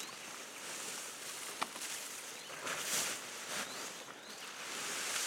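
Outdoor background ambience: a steady high hiss that swells and fades, with a single sharp click about a second and a half in.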